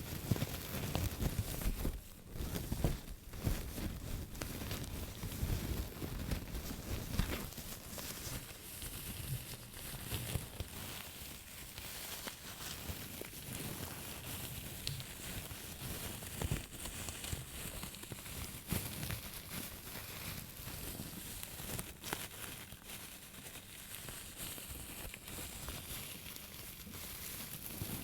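Close-up crinkling and scratching as an object is handled and rubbed, a dense run of small crackles, somewhat louder in the first few seconds.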